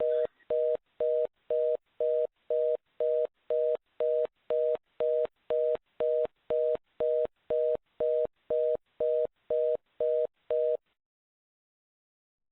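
Telephone fast-busy (reorder) tone: short two-note beeps repeating about twice a second, stopping suddenly near the end. It is the network's signal that the call has failed or been cut off.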